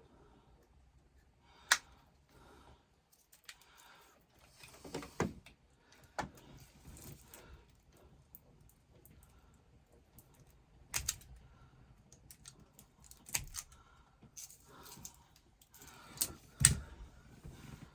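A few separate sharp clicks and knocks, with light rattling and rustling between them, from hands working at vehicle wiring and small parts.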